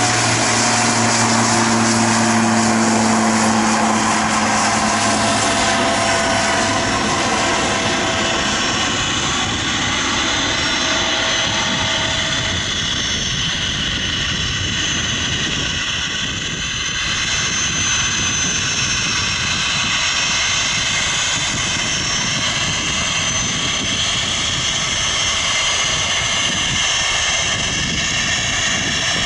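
A Pilatus PC-12/45's single Pratt & Whitney PT6A turboprop at takeoff power during the takeoff roll, liftoff and climb-out: a steady propeller drone with a turbine whine. The low propeller tones and a slightly falling mid tone fade over the first several seconds as the aircraft passes. The sound then becomes a steady rush with high whining tones as it climbs away.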